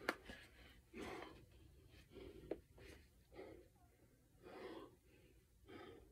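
Faint, steady human breathing, one breath about every second, with a sharp click at the start and a smaller one partway through.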